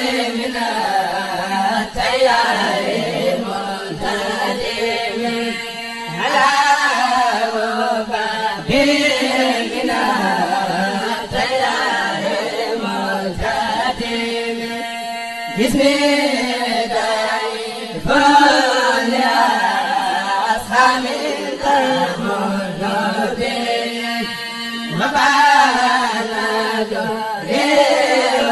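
A kourel, a Mouride chanting group, singing a xassida together without instruments, the voices gliding between long held notes.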